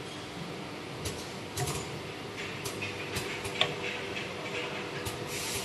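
Circular saw blade sharpening machine running: a steady motor hum with irregular clicks from its mechanism and short hissy scrapes, the longest near the end.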